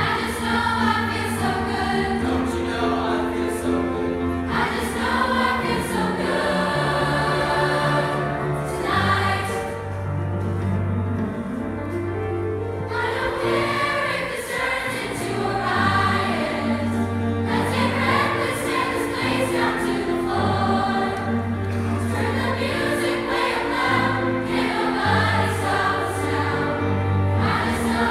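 Mixed youth choir of boys and girls singing together in parts, over sustained low bass notes.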